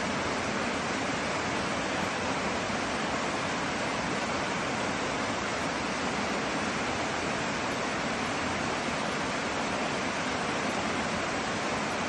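Mountain stream cascading down over rocks in small falls: a steady, even rush of water.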